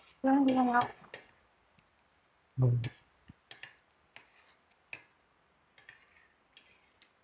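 Two short spoken utterances, then a scattering of small, light clicks: metal spoons tapping and scraping on a plate as snack food is scooped up and eaten.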